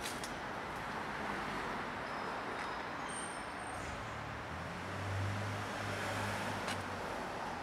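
Road traffic noise, with a low vehicle engine hum that swells about four seconds in and fades near the end.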